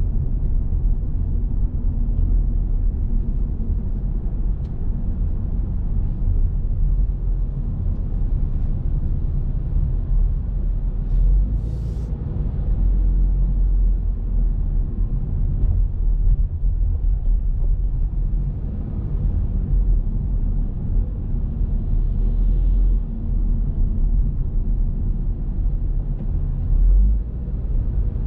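Car being driven: a steady low rumble of engine and road noise, with a brief hiss about twelve seconds in.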